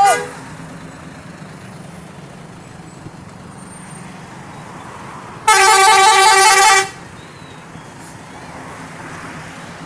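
A bus's musical 'telolet' multi-tone horn sounds one loud, warbling burst of about a second and a half, a little past halfway, over the steady hum of road traffic. A brief high chirp comes right at the start.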